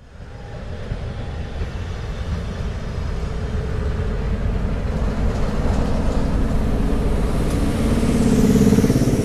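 Diesel freight locomotive approaching, its engine note and deep rumble growing steadily louder, loudest near the end.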